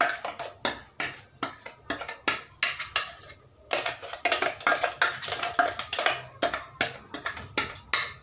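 A spoon scraping and clinking against the inside of a stainless-steel mixer-grinder jar as thick ground dal paste is scooped out into a steel pot. It makes a quick, irregular run of clinks and scrapes, several a second.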